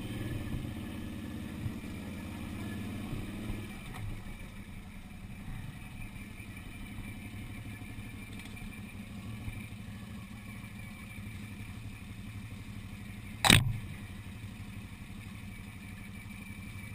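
Quad (ATV) engine running steadily on a trail ride, its note dropping lower and quieter about three and a half seconds in. About thirteen seconds in comes a single loud, sharp knock, the loudest sound.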